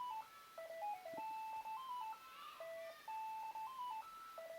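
An electronic device playing a simple tune of single beeping notes that step up and down in pitch, a few notes a second.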